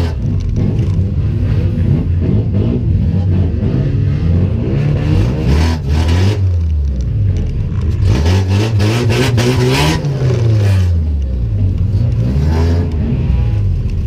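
Race car's engine heard from inside its stripped-out cabin, revving up and dropping back again and again as the throttle is opened and lifted. Bursts of harsh noise come about five and eight seconds in.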